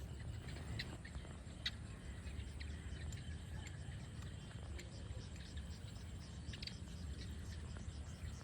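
Outdoor wildlife chirping: many short, high chirps scattered throughout, over a steady low rumble.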